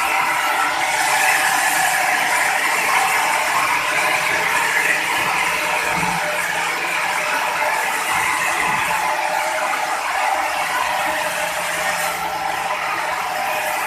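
Sawmill machinery running with a steady mechanical rattle and whir, unchanging throughout.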